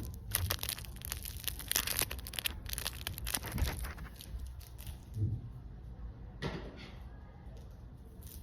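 Small plastic items and packaging being handled and rummaged through, crinkling and clicking. The sound is rapid and dense for the first four seconds, then turns sparser, with one more rustle near the end.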